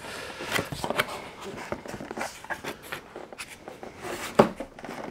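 Cardboard packaging being handled: the scraping, rustling and light knocking of a large box being worked open by hand from one end, with a louder knock about four seconds in.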